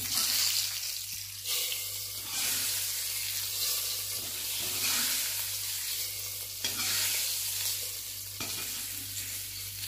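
Hot coconut-oil tempering of fried coconut, mustard seeds, dried red chillies and curry leaves sizzling steadily as it goes into the curry, with a few light knocks of the steel ladle.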